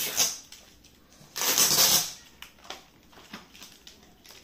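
Gift wrapping and packaging rustling and crinkling as it is handled, loudest in a half-second burst a little over a second in, followed by small clicks and taps.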